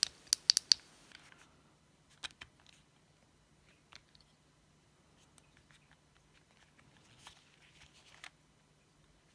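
Handling noises from a Shimano Ultegra Di2 STI lever turned over in the hands: a quick run of about five sharp clicks at the start, then scattered faint clicks and taps as its rubber hood is folded back and let go.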